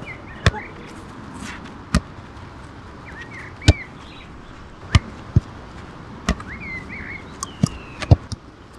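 A soccer ball being kicked and juggled: a series of sharp thuds of foot on ball, about eight in all, one every second or two.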